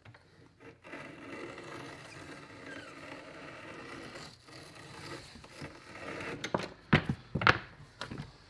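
Steady scraping for several seconds, then a few sharp knocks near the end.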